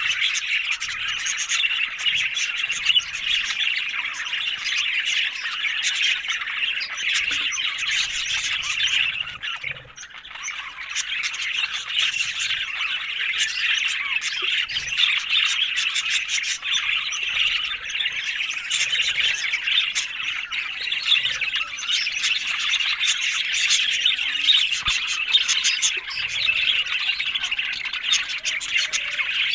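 Budgerigars chattering and warbling without a break, dense and busy, with a brief lull about ten seconds in.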